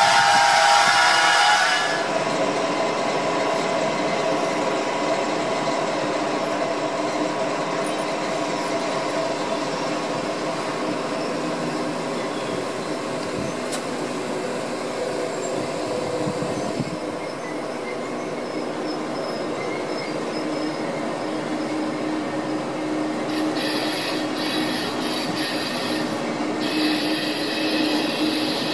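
SBB passenger coaches hauled by a red Re 4/4 electric locomotive rolling slowly along the track, the wheels squealing in steady high tones over the rumble of the train. The sound is loudest in the first two seconds, then steadies as the train draws away. A few sharp crackles come near the end.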